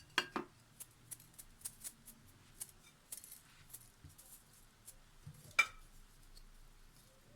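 Scattered light clicks and clinks of kitchen handling while lemons are salted by hand, with sharper knocks about a quarter second in and again about five and a half seconds in.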